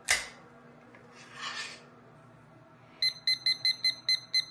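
A sharp clatter at the start and a brief scrape about a second and a half in, then, from about three seconds in, a small digital kitchen timer giving quick short high beeps, about four a second and slightly uneven, one beep per button press as it is set to five minutes.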